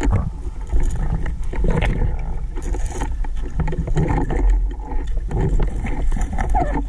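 Muffled water sloshing and a steady low rumble, heard through a camera held in the water during night spearfishing, with irregular splashy noises from the swimmer's movements.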